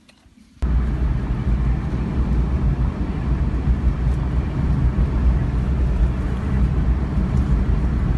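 Vehicle engine and road noise as a steady low drone, cutting in suddenly about half a second in.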